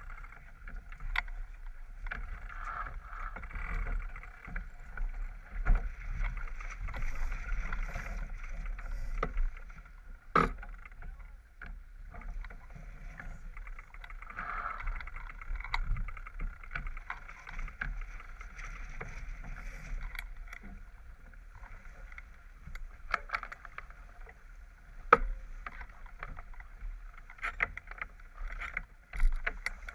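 Water rushing and hissing along the hull of a J24 sailboat heeled and sailing fast, with a low rumble under it. A few sharp knocks stand out, the clearest about ten seconds in and twice near the end.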